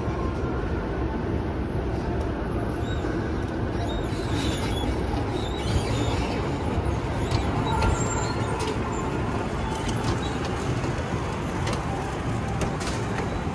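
Railway station ambience: a steady low rumble with scattered light clicks.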